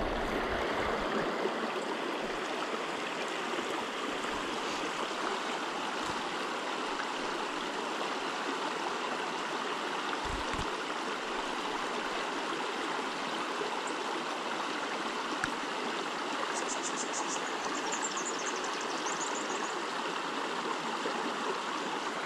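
Shallow rocky creek running steadily over stones, a continuous rush and babble of water through the riffles.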